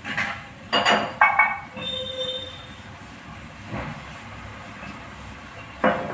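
Metal kitchen utensils knocking and clinking against a tawa, with a quick cluster of strikes about a second in, a brief metallic ring after it, and single knocks near four seconds and near the end. A steady frying hiss runs underneath.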